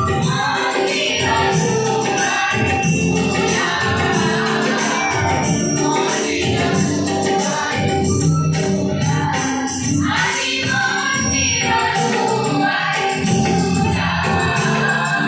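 School choir of girls and boys singing an Assamese group song (samabet sangeet) together through microphones.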